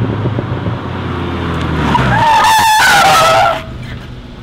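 A VW Golf GTI Mk7's turbocharged four-cylinder engine runs as the car approaches. About two seconds in, its tyres squeal loudly for a second and a half as it slides to a stop. The squeal wavers, falls slightly in pitch and cuts off suddenly, leaving the engine idling quietly.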